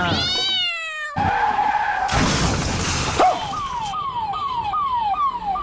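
Sound effects of a sudden swerve: a pitched tyre screech that rises and falls, a skidding hiss and a burst of noise like a crash. Then comes a quick run of falling whistle-like tones, about two and a half a second.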